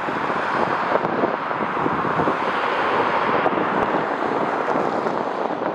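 Steady roar of jet airliner engines at the airfield, mixed with wind on the microphone.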